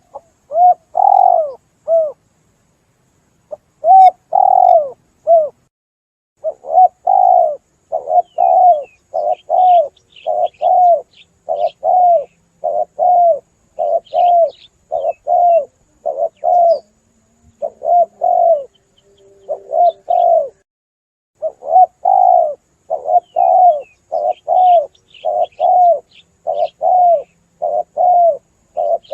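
Spotted dove (tekukur) cooing: short groups of coos at first, then a steady run of repeated coos, a little more than one a second. Faint high chirps of small birds sound now and then behind it.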